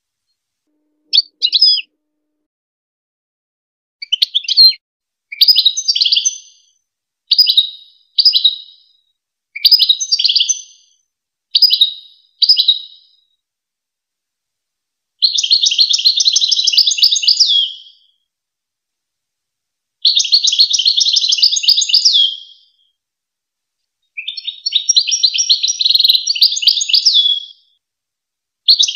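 European goldfinch singing, high-pitched: short twittering phrases in the first half, then longer, fast-trilled phrases of about two to three seconds each, separated by silent gaps.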